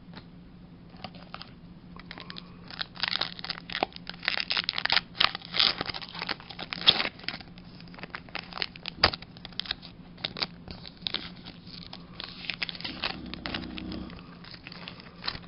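Foil wrapper of a Pokémon card booster pack crinkling and being torn open, in bursts of sharp crackles that are busiest in the middle and again near the end.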